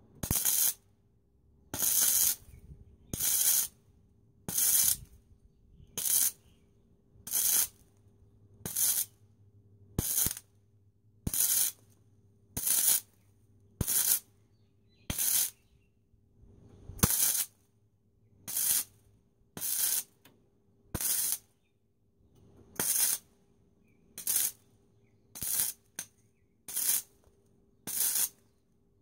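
MIG welder stitch-welding a steel rust-repair patch: about twenty short bursts of arc crackle, each under a second, about one every 1.3 s, with quiet pauses between them.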